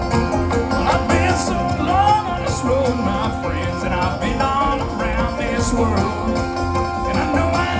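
Live bluegrass band playing: picked banjo, acoustic guitar and mandolin together, with a voice singing from about a second in.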